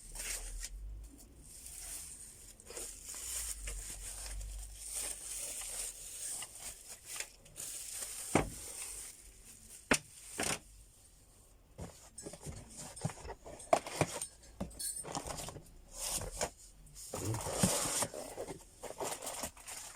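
Packaging being handled while items are unpacked: rustling and crinkling with scattered sharp clicks and knocks, and a louder stretch of rustling near the end.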